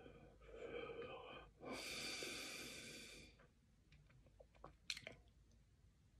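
A man breathing audibly at close range: two breaths, the second a longer one of about a second and a half, starting about two seconds in. A few faint clicks follow near five seconds.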